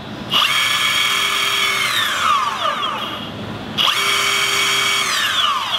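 Newly fitted replacement electric motor of a Boosted Board V2 spinning the free rear wheel through its belt drive in a test run, twice. Each time it starts abruptly into a steady high whine, holds for about a second and a half, then winds down with falling pitch as the wheel coasts to a stop.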